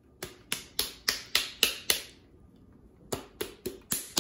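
A palm slapping the bottom of an upturned glass mason jar: sharp smacks about four a second in two runs with a short pause between, knocking dry cookie mix that is stuck inside out into a bowl.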